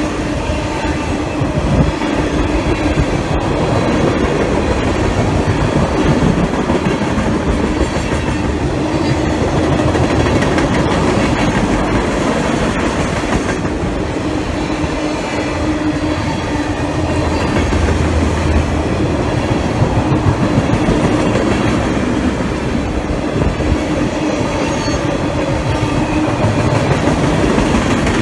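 Freight train cars rolling past at close range: steel wheels knocking over the rail joints in a dense, steady clatter, with a faint steady tone running under it.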